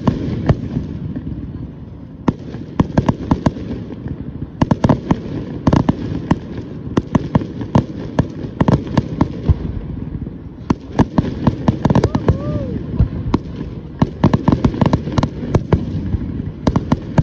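Aerial fireworks shells bursting and crackling: a sharp bang at the start, then repeated clusters of rapid crackling pops over a low rumble.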